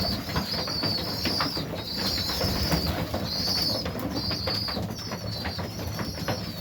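Young highflyer pigeons peeping, a run of high, arched calls about one a second, with low cooing and scattered light clicks underneath.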